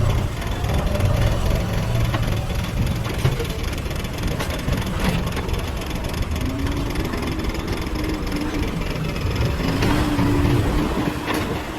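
JCB 3DX backhoe loader's diesel engine running steadily while working, its note rising in pitch about six seconds in and again near the end, with a couple of sharp knocks.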